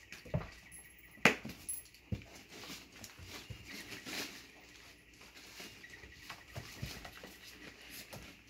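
A litter of puppies moving about in a whelping box: paws scuffling and pattering on pads and pellets, with scattered small knocks and one sharp click about a second in.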